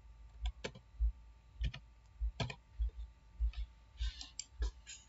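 Computer keyboard keys clicking irregularly, about a dozen sharp clicks, as a short code is typed, with a mouse button click near the end.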